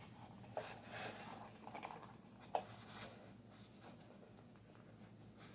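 Faint handling sounds: soft rustles and small clicks, with one sharp tap about two and a half seconds in.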